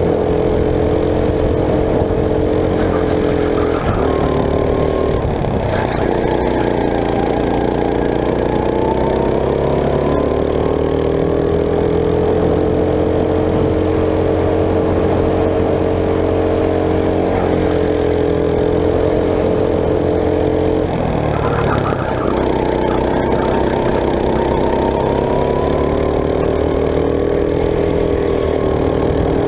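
Go-kart engine heard from on board, running at speed the whole time. Its pitch drops twice as the kart slows, about five seconds in and again about three-quarters through, then climbs back and holds steady on the straights.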